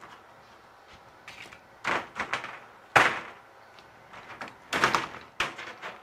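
Half-inch galvanized hardware cloth rattling and scraping as the stiff wire mesh is handled on a workbench: a series of sharp metallic rattles, loudest about three seconds in.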